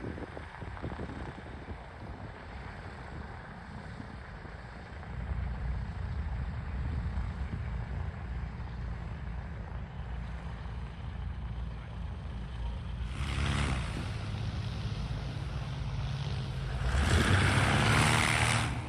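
The Ranger 6-440 inverted inline-six engine of a Fokker D.VII replica biplane running in flight, growing louder about five seconds in. It swells twice as the plane passes closer, loudest near the end, then drops away.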